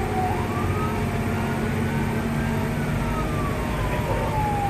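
Fire engine siren on a slow wail, rising and falling over a few seconds, heard from inside the cab over a steady engine and road rumble.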